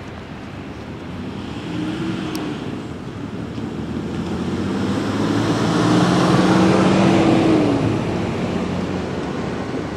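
Road traffic driving over the crossing: engine and tyre noise of cars and a pickup truck, building to its loudest about six or seven seconds in and easing off near the end. A single sharp click about two seconds in.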